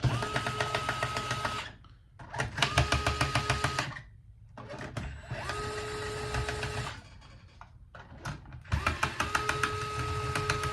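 Small electric screwdriver backing out screws, run four times for about one and a half to two seconds each, its motor whine settling to a steady pitch over a fast clicking.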